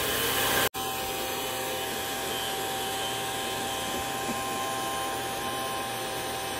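Electric stand mixer running steadily, its twin beaters whipping egg whites and sugar into meringue: a constant motor whine with a brief break less than a second in.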